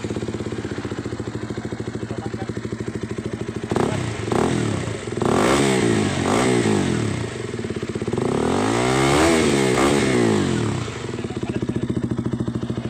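KTM Duke 200's single-cylinder four-stroke engine running through an aftermarket F2Racing big-volume carbon-fibre slip-on muffler: it idles steadily, then is blipped in several short revs about four seconds in, followed by one longer rev around nine seconds, and settles back to idle near the end.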